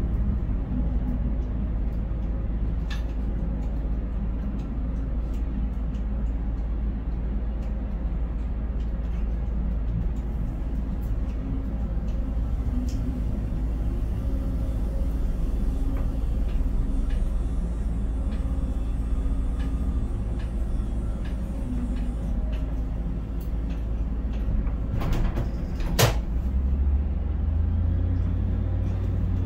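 Steady low drone of a container crane's machinery heard inside the operator's cab while the spreader hoists a container and the trolley carries it out over the quay. Near the end comes one sharp clank, and a deeper hum sets in just after it.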